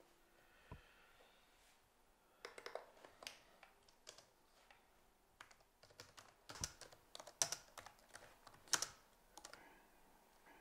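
Typing on a laptop keyboard: irregular keystrokes that begin a couple of seconds in.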